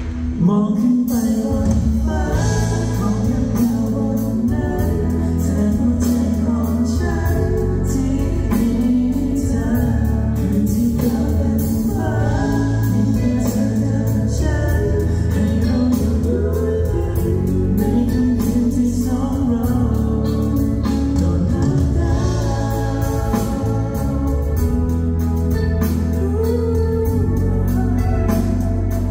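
Two male vocalists singing a Thai pop song live into handheld microphones, over a backing track with sustained bass notes and a steady beat.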